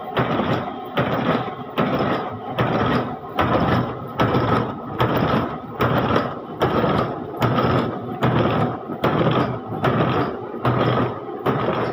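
Ceiling-fan hook wire-forming machine running, its mechanism clattering in a steady rhythm of about two strokes a second.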